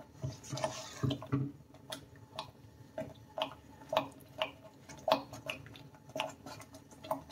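Thick fig and semolina halwa bubbling in the pan as it is stirred, with irregular wet pops about twice a second as large bubbles burst. This is the sign that the halwa is cooked and ready.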